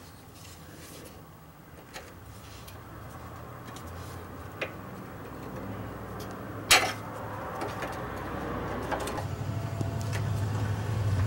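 Light metallic clicks and taps of pliers and fingers working a cotter pin out of a tie rod end's castle nut, with one sharper clack about two-thirds of the way through. A low rumble builds up near the end.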